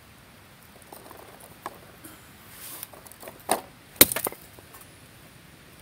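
Firewood being broken up for a campfire: a few light knocks, then two sharp cracks about three and a half and four seconds in, the second the loudest, followed by a couple of smaller knocks.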